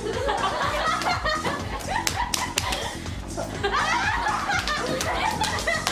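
Background music with young women laughing and chattering over it, and a few sharp clicks about two seconds in.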